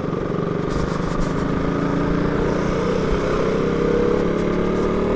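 Sport motorcycle engine running steadily under the rider, its pitch and level rising slightly as it gently picks up speed, with road noise beneath.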